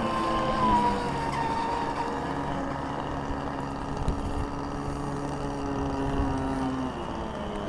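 Radio-controlled model speedboat's motor running at high speed as the boat planes across the water, a steady whine after a rising rev just before, its lower tone dropping away about seven seconds in.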